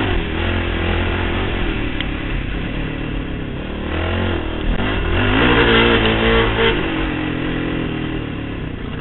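2008 Honda TRX700XX quad's single-cylinder four-stroke engine running hard through a Big Gun Evo-R aftermarket exhaust. It revs up about five seconds in, loudest for a second or two, then eases off.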